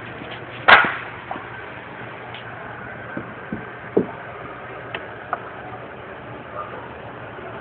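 Workshop knocks and clicks: one sharp crack about a second in, then several lighter knocks, over a steady low hum.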